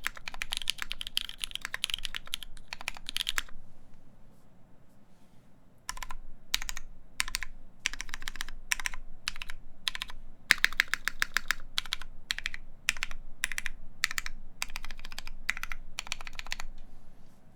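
Mechanical keyboard with lubed Cherry MX Black linear switches on a full polycarbonate plate, with Cherry-profile keycaps, being typed on: a fast run of keystrokes, a pause of a couple of seconds, then typing in short word-like clusters that stops near the end.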